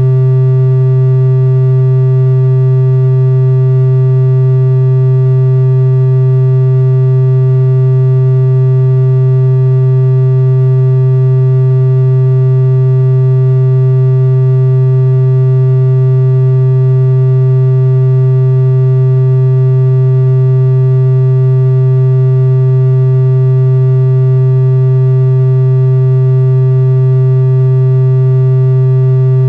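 Loud, steady, low-pitched electronic buzz tone, a single synthesized note held without any change, closing a mock Emergency Alert System broadcast.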